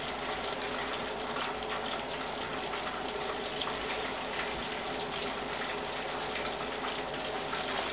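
Chicken thighs sizzling in hot oil in an electric skillet: a steady hiss with fine crackling. A small knock about five seconds in.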